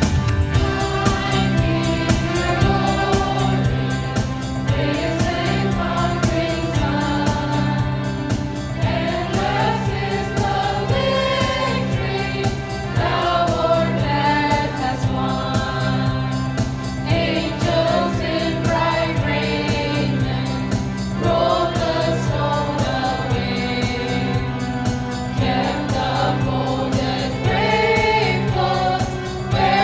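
A mixed choir of men, women and children singing a gospel hymn together over sustained keyboard chords with a steady beat.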